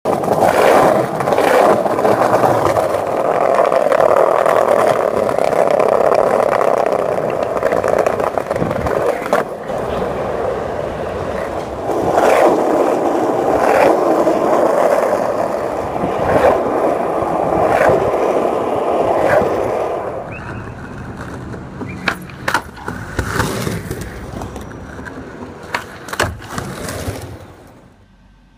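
Skateboard wheels rolling over pavement: a steady rolling roar, louder in long stretches, broken by occasional sharp clacks. About two-thirds of the way through the roll quietens and the clacks stand out more, and it drops away shortly before the end.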